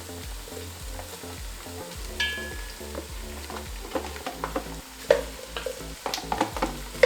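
Beef sizzling as it fries in a pan with onions and coriander stalks, with a spoon stirring it and knocking against the pan now and then, most sharply about five seconds in.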